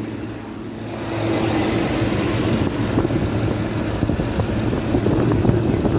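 2011 Ford F350's engine running at a steady idle, a little louder from about a second in. It runs after repair of a bad main wiring harness ground that had caused an intermittent no-crank, no-start fault.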